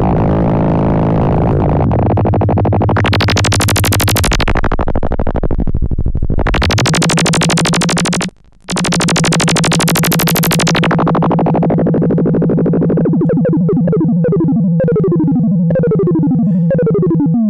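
LushOne synthesizer's self-resonating filter, its cutoff driven by two LFOs multiplied in the VCA, chuntering away as the LFO speeds are turned: a wide upward sweep into a harsh high buzz, a brief cutout about halfway, then a steady low tone with a run of falling pitch sweeps near the end.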